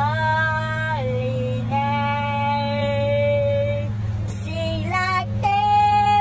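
A woman singing a worship song in long held notes, with a steady low engine hum beneath.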